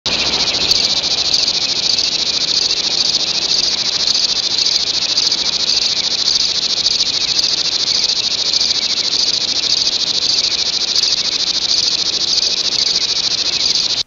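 Loud, steady chorus of chirring insects with an even pulse, which cuts off suddenly near the end.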